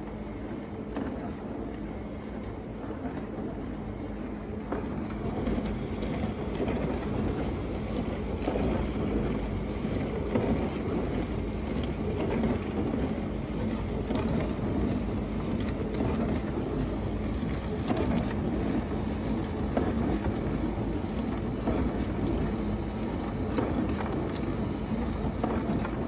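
Hotpoint built-in dishwasher running its wash cycle: a steady motor hum with water spraying inside, growing louder about five seconds in.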